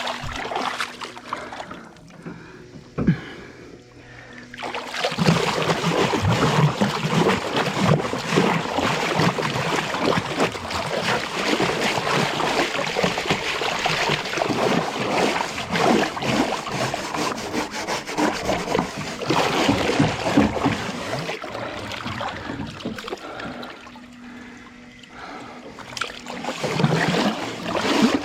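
Water splashing and sloshing: a dense run of small irregular splashes that starts about five seconds in and dies down near the end, after a single knock about three seconds in.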